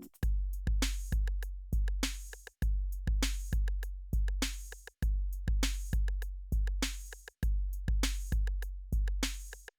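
Electronic music: a drum-machine beat of deep bass kicks and crisp high percussion hits in a steady repeating pattern, with a short drop-out roughly every two and a half seconds.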